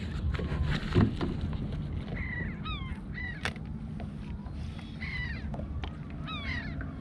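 Gulls calling, short falling cries that come in clusters several times, over a steady low rumble of wind and water. A single sharp thump about a second in.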